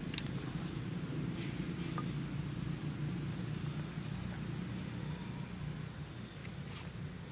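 Outdoor ambience: a steady low rumble with a thin, steady high-pitched insect drone over it, and a few faint ticks and rustles.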